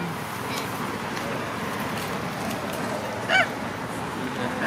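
Steady outdoor background noise with one short, high squeak about three seconds in, from a long-tailed macaque.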